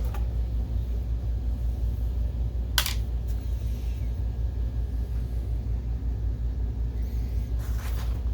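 Steady low hum, with one sharp click about three seconds in and a brief rustle near the end.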